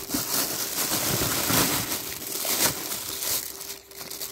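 Thin plastic bags crinkling and rustling as a hand pushes among clay pots wrapped in them, a dense crackle that eases off a little near the end.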